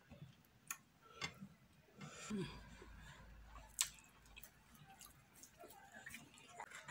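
A person chewing and making wet mouth sounds while eating fufu with okro and ogbono soup by hand, with a few short clicks, the sharpest about four seconds in.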